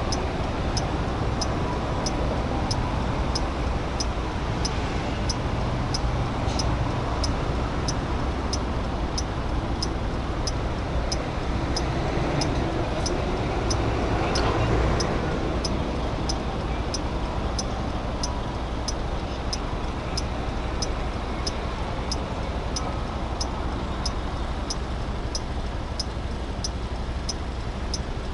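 Turn signal ticking steadily, about one and a half ticks a second, over the low rumble of idling traffic. Another vehicle passing makes a swell of noise about halfway through, the loudest moment.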